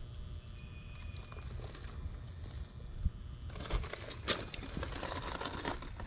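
Rustling, crinkling handling noise with scattered clicks over a low background rumble, busiest for the last couple of seconds with one sharp click a little past the middle.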